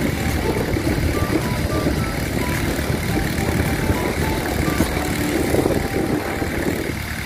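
Steady rumble of vehicle or machinery engines on a construction site, with a faint run of short high notes at changing pitches over it.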